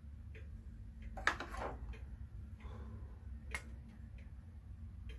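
Hermle Comtoise wall clock's pendulum movement ticking steadily, with a louder, brief rattle about a second in.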